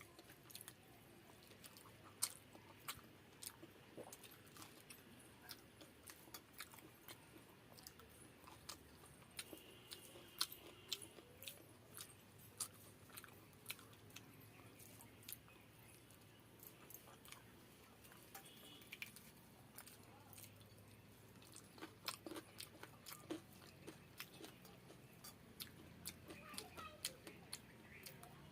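Close-up chewing and mouth sounds of someone eating, with frequent short, sharp crunches and clicks at an irregular pace.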